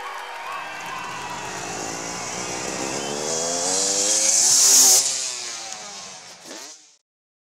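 Motocross bike engine revving hard, rising in pitch as it accelerates up a jump ramp. It is loudest about five seconds in, then drops away and fades, and cuts off to silence near the end.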